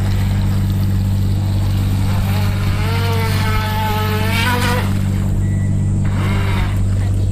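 Radio-controlled speedboat's 380 electric motor running on the water, its whine swelling and bending in pitch as the boat passes close, about two and a half to five seconds in. A steady low hum lies under it throughout.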